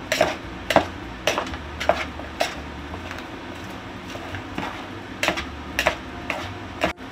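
A utensil clicking and scraping against a plastic mixing bowl as salad is tossed: sharp clicks about twice a second, pausing for about two seconds midway.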